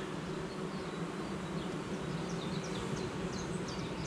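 Honeybee colony humming in an opened hive: a steady low buzzing drone, with a few short high chirps over it in the second half.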